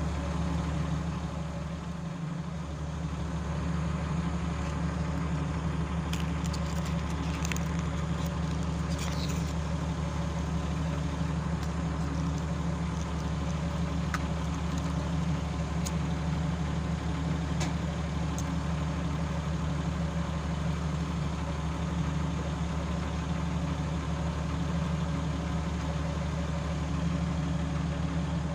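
Hitachi Zaxis 210F-5G excavator's diesel engine idling steadily. A few light clicks come between about six and eighteen seconds in.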